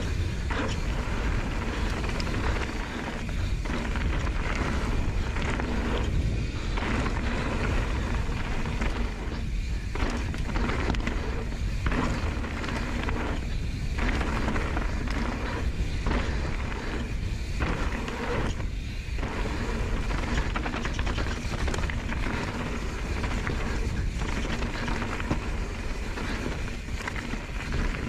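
Mountain bike riding fast down a loose slate-gravel trail: tyres crunching and rattling over stones with the bike clattering, under a heavy wind rumble on the camera microphone.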